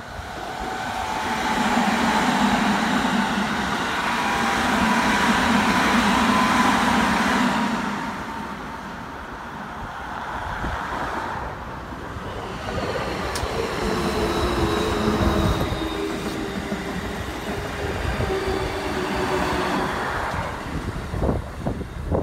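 Keikyu electric trains running past on the line: wheel rumble and a steady motor whine swell and fade twice. Near the end, a quick run of wheel clacks over rail joints as a six-car Keikyu 1500-series train comes by.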